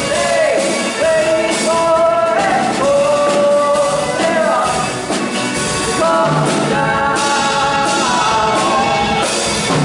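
Rock band playing a song: drum kit and guitars under a melody line of long held notes that slide from one pitch to the next.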